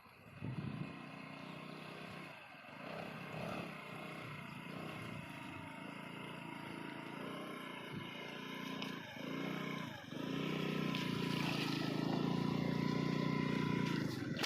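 Small motorbike engine running as it rides a rough dirt track, its revs rising and falling unevenly, getting louder about ten seconds in.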